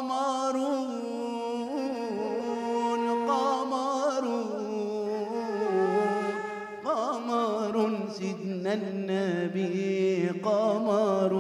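A male voice singing an Islamic inshad in a long, ornamented, wavering melody, accompanied by violin and frame drum.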